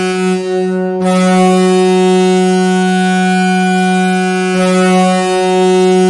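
Ice hockey arena goal horn sounding one long, unbroken blast: a single deep, steady tone with a rich stack of overtones.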